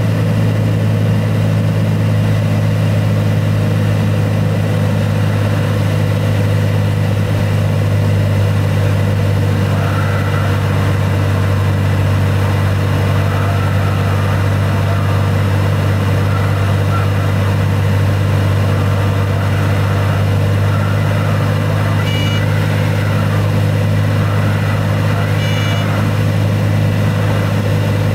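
Cessna 206's piston engine and propeller droning steadily inside the cabin on the landing approach, with no change in power.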